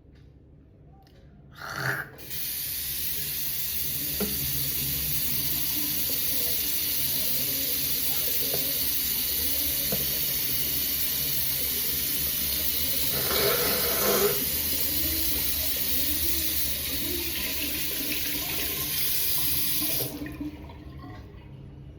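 Water running steadily from a tap into a sink, starting about two seconds in and stopping abruptly near the end, with a brief louder sound over it about two-thirds of the way through.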